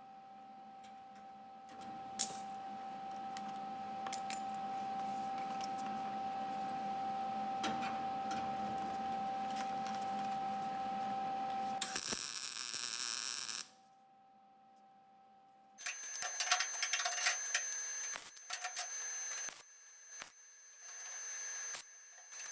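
MIG welding on the Beetle's sheet-steel engine tray, a steady frying crackle lasting about ten seconds, with the metal coated in weld-through primer. It is followed by a brief loud hiss and, after a short pause, irregular metallic clicks and scrapes.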